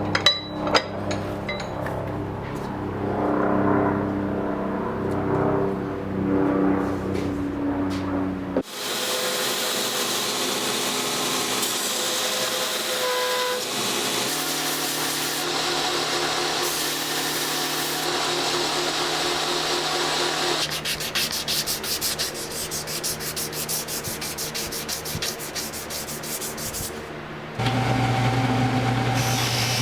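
Sanding and rubbing sounds of hand finishing work on a knife, in a series of short segments that change abruptly several times, some with a steady machine hum underneath.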